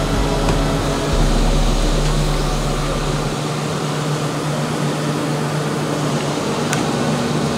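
Diesel engine of a Grove crane truck running steadily as the crane hoists a heavy load, a constant low hum under a broad mechanical noise. The deepest rumble drops away about halfway through.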